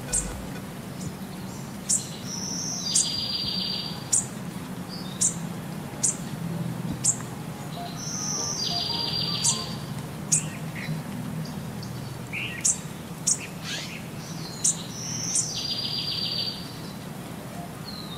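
Birdsong: sharp high chirps roughly once a second, with a buzzy trilled phrase. The same pattern repeats about every six seconds, like a looped recording.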